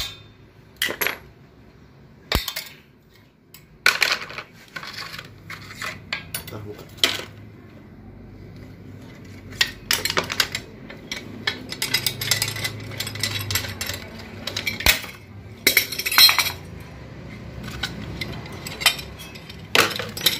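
Steel automatic-transmission clutch drum and hand tools clinking and clattering at irregular intervals during hand disassembly, with a few sharp metallic knocks that ring briefly.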